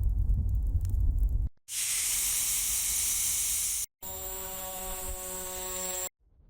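A string of short sound-effect samples cut one after another: a low rumbling noise with faint crackles, a bright steady hiss like escaping steam or spray, then a hiss carrying a steady cluster of tones, each ending abruptly.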